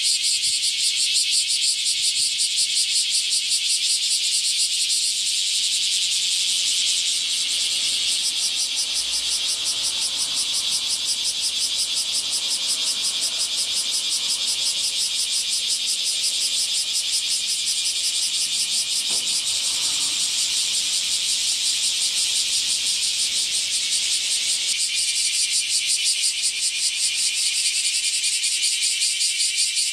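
Chorus of bear cicadas (Cryptotympana facialis, kumazemi), many singing at once in a steady, rapidly pulsing high-pitched buzz.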